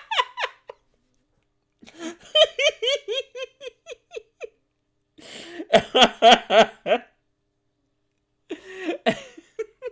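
Several separate bursts of high-pitched giggling laughter, each a quick run of short, repeated laughs. The loudest burst comes about six seconds in, with a shorter one near the end.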